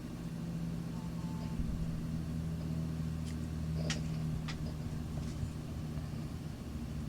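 A steady low mechanical hum, with a few short sharp snips about halfway through: scissors trimming the deer-hair head of a tied fly.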